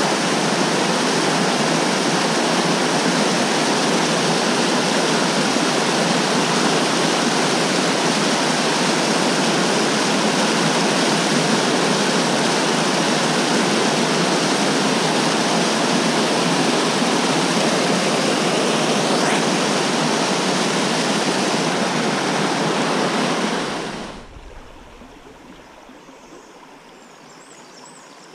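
Small waterfall pouring into a pool on a rocky mountain trout stream: a loud, steady rush of water. Near the end it drops suddenly to the much quieter ripple of a shallow, rocky stream riffle.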